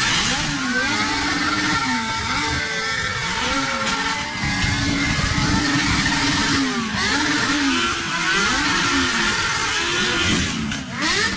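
Several motorcycle engines revved hard over and over, their pitch rising and falling again and again as they overlap, with exhaust flame kits firing flames on the revs.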